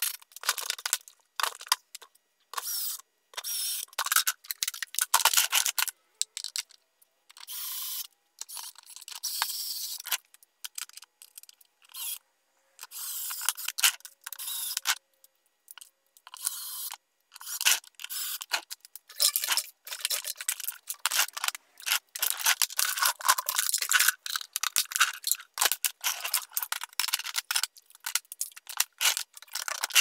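A shop vacuum being put together by hand: short, irregular bursts of clicking and rattling as plastic parts are handled and snapped together, with screws run in by a cordless drill.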